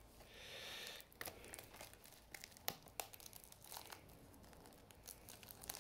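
Tough cellophane shrink-wrap being picked at and peeled off a disc case. A soft crinkling rustle comes first, then faint scattered crackles and clicks.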